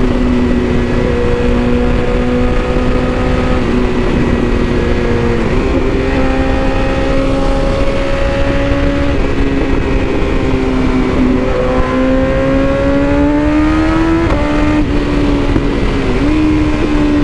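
BMW S1000RR inline-four engine cruising at highway speed, its exhaust note holding a steady pitch that dips and climbs back a few times as the throttle changes, over steady wind rush.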